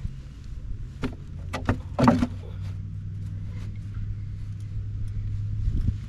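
A motor vehicle's engine running with a steady low hum, joined by a few sharp knocks about one to two seconds in, the loudest just after two seconds.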